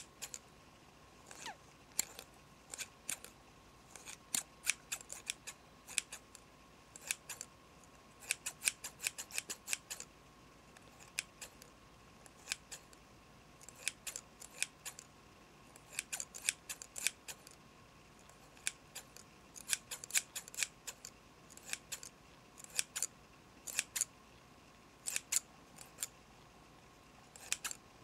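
Hairdressing scissors snipping close to the microphone, in quick runs of several snips with short pauses between.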